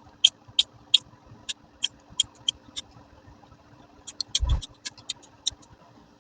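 Steel scraped down a cheap ferrocerium rod in quick, short strikes, each a brief high rasp, about two to three a second, to throw sparks into tinder. After a pause of about a second, another run of strikes follows with a dull thump among them.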